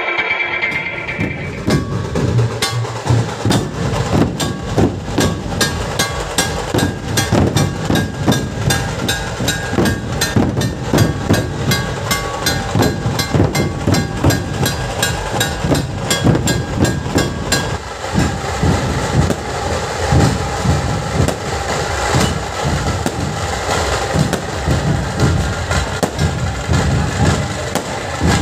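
Nasik dhol troupe beating large barrel drums in a fast, steady, driving rhythm.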